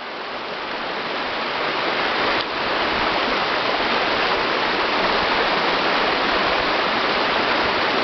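Waterfall on a mountain brook: water rushing steadily over rocks, growing louder over the first couple of seconds and then holding even.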